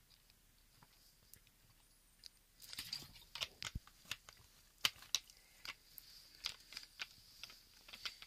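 Someone drinking a carbonated Japanese soda (cider). A brief hiss comes about two and a half seconds in, then faint, scattered clicks and crackles follow. No burp comes yet.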